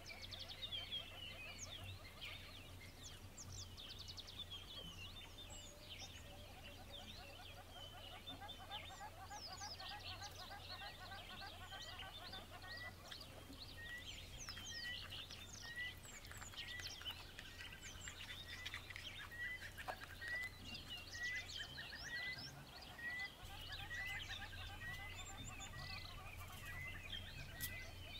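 Several birds chirping and twittering, with one bird repeating a short note about once a second from about halfway through; a steady low hum runs underneath.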